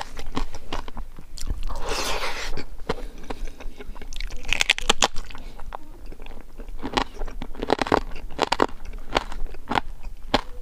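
Close-up eating of crispy fried pork: sharp crunches in quick succession as it is bitten and chewed, with a dense run of crunches about four to five seconds in.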